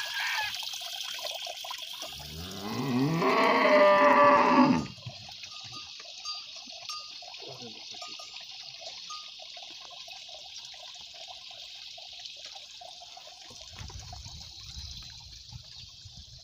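A cow mooing once: one long call that rises in pitch and cuts off sharply, about two to five seconds in. A steady high hiss runs underneath.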